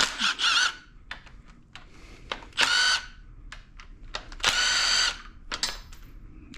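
Cordless impact wrench with a 13 mm socket run in three short bursts, its motor whining up and spinning, as the engine's timing cover bolts are run out. Small metallic clicks between the bursts.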